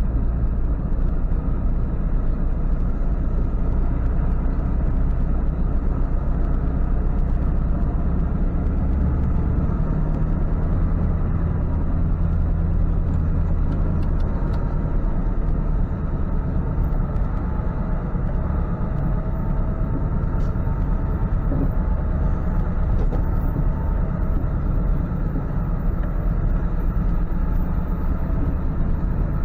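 Ford F-550 tow truck driving, its engine running steadily under road noise; the engine note lifts for several seconds about nine seconds in.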